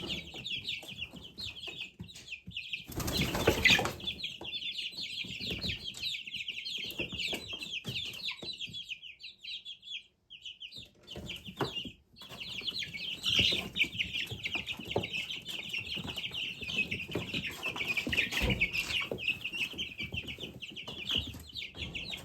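A flock of chickens clucking and chattering in a steady stream of short calls, with a brief loud rustle about three seconds in and a short lull near the middle.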